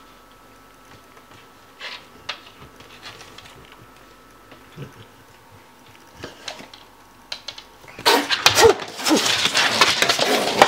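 Small rustles and clicks, then about eight seconds in a cat suddenly starts hissing and yowling loudly, an attack on a dog.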